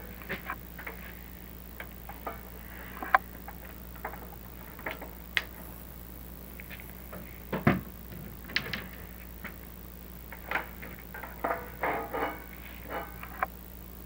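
Chimney inspection camera rig being worked through a brick flue: scattered light clicks and taps, with a heavier thump a little past the middle, over a steady low electrical hum.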